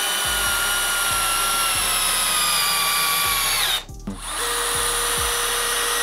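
Milwaukee M12 Fuel brushless installation drill/driver driving a long SPAX screw into stacked OSB. The motor's whine slowly drops in pitch as it loads up. It stops suddenly about four seconds in, and a DeWalt 12V brushless 5-in-1 drill/driver then starts driving another screw with a steady whine at a lower pitch.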